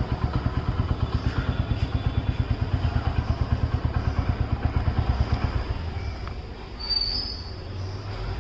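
Motorcycle engine idling with an even, rapid putter at about nine beats a second, which dies away about six seconds in, leaving a steadier low rumble.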